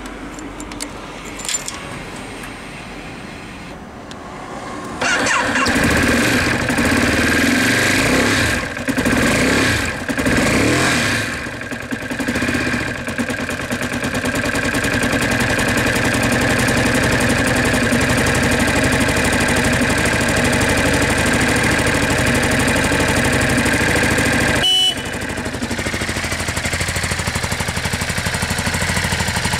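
Ducati Monster 821's L-twin engine through its stock exhaust, started about five seconds in, blipped a few times, then idling steadily. Near the end it is heard a little quieter after a sudden break.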